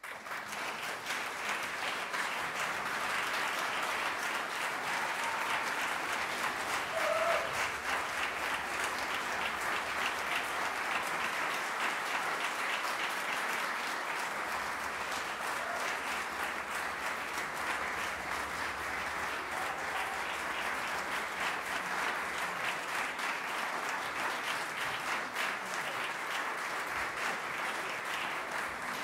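Audience applauding, breaking out suddenly and continuing steadily.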